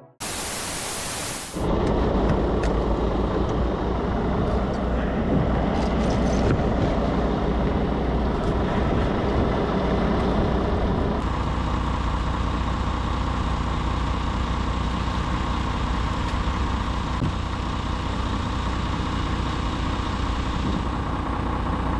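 Semi-truck diesel engine idling with a steady low running hum, opened by a loud hiss lasting about a second and a half.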